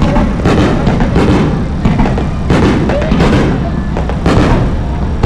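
Fireworks going off in quick succession: a string of sharp booms about every half second to a second over a continuous deep rumble.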